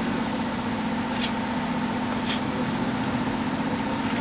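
A steady mechanical hum, like an engine or motor running at a constant idle, with two brief faint clicks about one and two seconds in.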